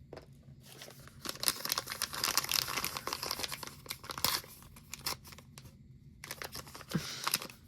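Thin plastic wrapping crinkling and tearing as a small packaged toy item is opened by hand, in two spells of crackling with a short pause between.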